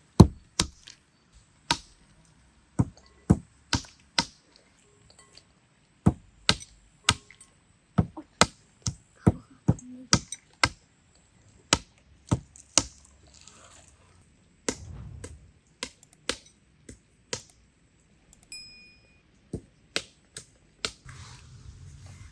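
A long series of sharp, hard knocks, irregularly spaced at about one a second, with a few short pauses.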